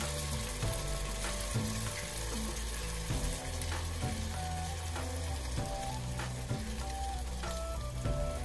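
Onion-tomato masala sizzling in hot oil in a pressure cooker as soaked basmati rice is tipped in from a bowl, with a steady frying hiss and a few light clicks.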